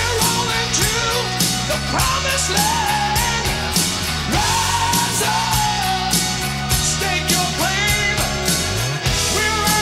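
Rock band playing a song, with a singer holding long, bending sung notes over bass, drums and cymbals.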